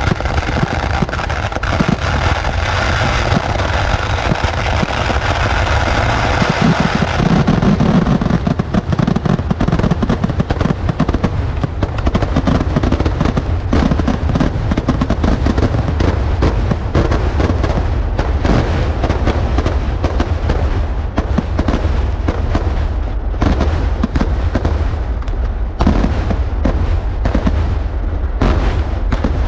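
Fireworks display: a dense, continuous barrage of explosions with a heavy low rumble. For the first several seconds it is a thick crackle, then it breaks into rapid separate bangs that stand out more clearly toward the end.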